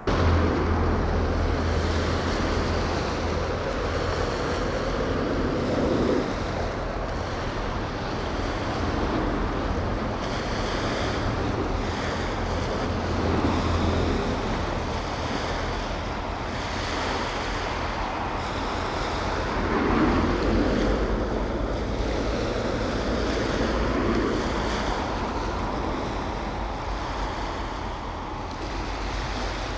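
Wind rushing and buffeting the microphone, an even noisy rush that swells and eases, with a strong low rumble for about the first half.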